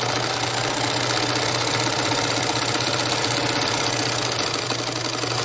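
An early-1970s Bernina Record 830 sewing machine running steadily at speed, sewing a zigzag stitch forward. Its motor hum carries a fast, even ticking from the needle.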